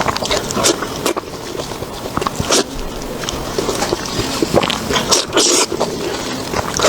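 Close-miked chewing and mouth sounds of someone eating, with irregular crisp clicks and wet smacks and a few sharper bites spread through.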